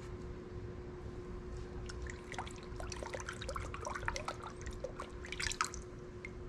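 Water sloshing and dripping in a plastic tub as a gloved hand dips a part through the floating paint film and lifts it out: a run of small irregular splashes and drips starting about two seconds in, busiest just before the end. A steady faint hum runs underneath.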